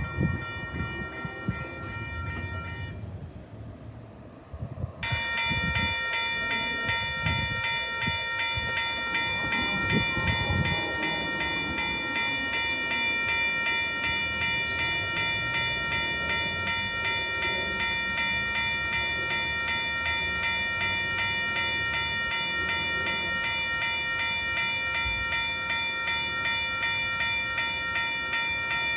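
Railroad bell ringing in a fast, even repetition over the low rumble of a train. The ringing breaks off about three seconds in and starts again two seconds later.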